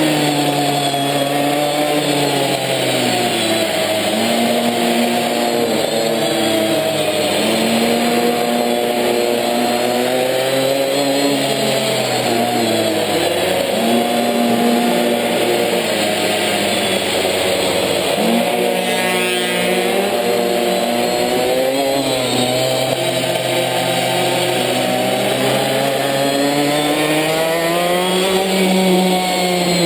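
Minimoto's small two-stroke engine heard from on board, its pitch rising and falling over and over as the throttle is opened and closed through the corners. Partway through, the revs drop lowest before picking up again.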